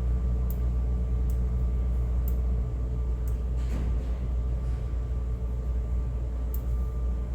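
A steady low mechanical rumble with a faint steady hum over it and a few light clicks.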